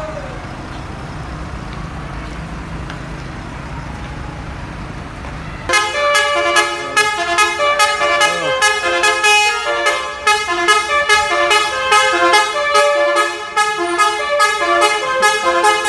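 A bus's Basuri telolet horn plays a multi-note tune, starting about six seconds in and pulsing in a quick, regular rhythm. Before it, a low steady rumble of the idling bus.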